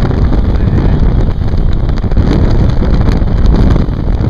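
Loud wind buffeting the microphone aboard a small motorboat under way, with the boat's running noise underneath.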